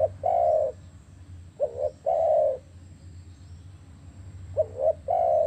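Spotted dove (tekukur) cooing: two quick short notes followed by one longer coo, repeated three times.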